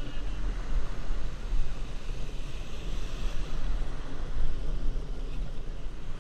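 Ocean surf breaking and washing around a stand-up jet ski in shallow water, under heavy wind rumble on the microphone.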